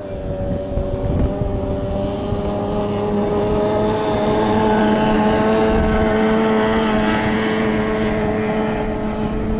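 Outboard engines of stock racing hydroplanes running flat out: a steady buzzing whine that swells over the first few seconds and then slowly eases as the boats race past.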